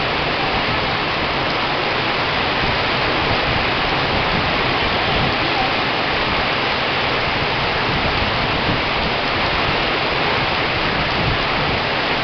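Heavy rain falling steadily in wind, a dense, even hiss with no let-up.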